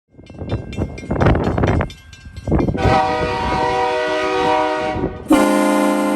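Aftermarket HornBlasters Shocker XL air train horn on a small car sounding two long blasts, each a chord of several steady tones. The second blast, about two and a half seconds later, sits lower. Before the first blast there are a couple of seconds of rough rumbling and knocking noise.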